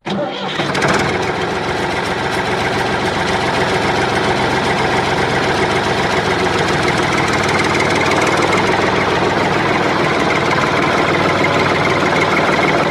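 A motor running steadily, starting abruptly and cutting off abruptly.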